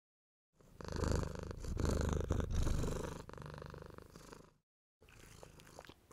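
Domestic cat purring close up: a low, rapidly pulsing rumble, loudest in the first few seconds. It cuts off about four and a half seconds in and starts again half a second later.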